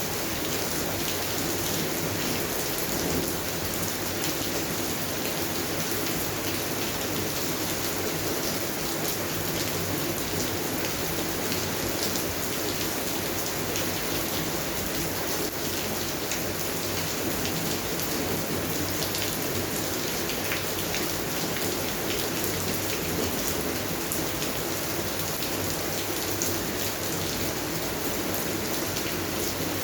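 Steady rain falling on a garden, a constant hiss with many individual drops pattering on leaves and surfaces.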